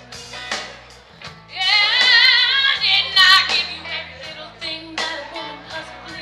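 A woman singing a song over band music with a steady beat. About a second and a half in she holds a loud, long note with a wide vibrato.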